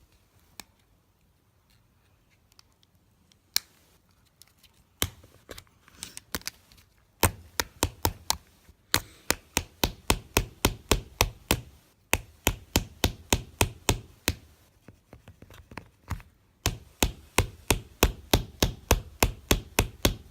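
Hard plastic knocks from an old Nokia flip phone being struck: a few single knocks, then long fast runs of about four strikes a second, with short pauses between runs.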